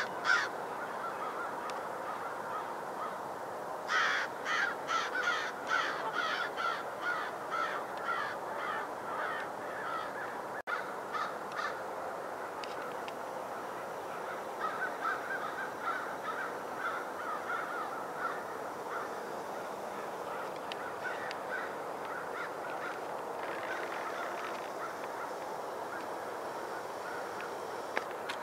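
Birds calling: a rapid run of harsh, evenly spaced calls, about three a second and fading over some six seconds, then fainter scattered calls later, over a steady outdoor hiss.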